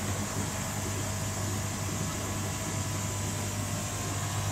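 Koi pond filtration equipment running: a steady low electric hum from the pumps, with an even hiss over it, while the upflow filter goes through its timed rinse cycle.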